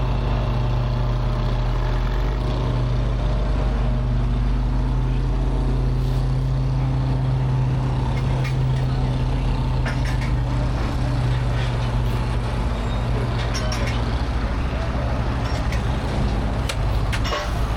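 Heavy engine running steadily at an even speed, with a deep hum, and a few sharp clicks or knocks near the end.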